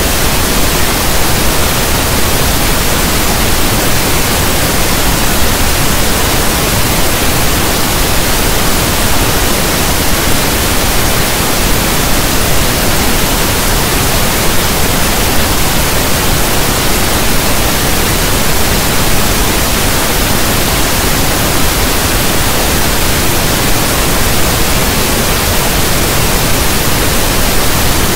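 Steady, loud pink noise: an even hiss like static from a radio not tuned to a station, with no tones, beats or changes.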